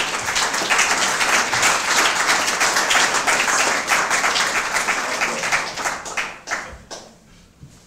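Audience applauding: many hands clapping densely, then thinning to a few scattered claps and dying away near the end.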